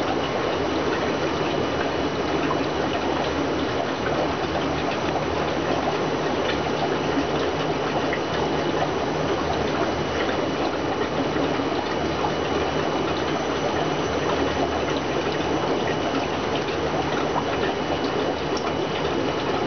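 Steady rush of running water from a fish room's aquarium tanks and their filtration, over a constant low pump hum.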